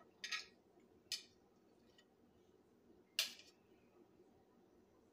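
Metal kitchen tongs clicking as chicken wings are picked up: a quick double click just after the start, a single click about a second in, and the loudest click about three seconds in.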